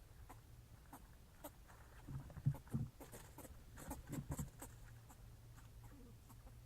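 Two clusters of short, low-pitched animal-like calls, about two seconds in and again about four seconds in, from an unidentified animal. They sit over a steady low hum and scattered faint clicks.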